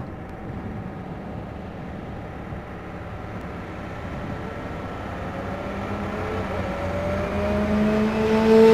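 DJ remix intro build-up effect: a noisy rush with a slowly rising tone, growing steadily louder, with a lower steady tone joining near the end.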